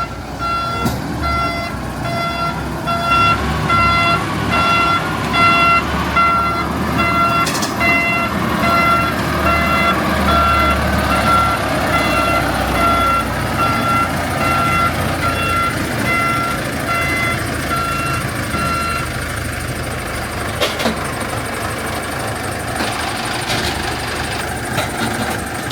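Reversing alarm on a heavy machine beeping at a steady pace, a bit more than once a second, over the low running of a diesel engine; the beeping stops about three-quarters of the way through while the engine runs on.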